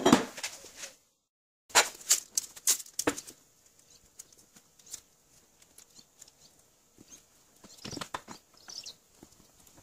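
A loud knock at the start. After a brief cut to silence comes a run of short clicks, rustles and taps: masking tape being pulled off its roll and pressed onto the base of an old steel screw jack.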